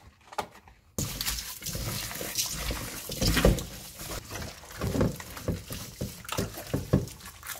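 Wet squelching and rubbing as rubber-gloved hands knead a raw octopus with coarse salt in a stainless-steel colander, starting about a second in, in irregular swells. The salt scrub strips the octopus's sticky slime.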